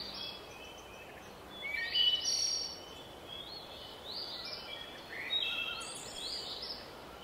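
Several songbirds chirping and singing in short, high calls over a faint steady hiss of woodland ambience, the calls coming in clusters about two seconds in, around five seconds in and again near the end.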